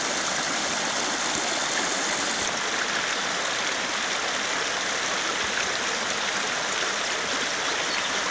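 Steady rushing and babbling of the shallow Trebišnjica river running over stones. The tone of the water changes slightly about two and a half seconds in.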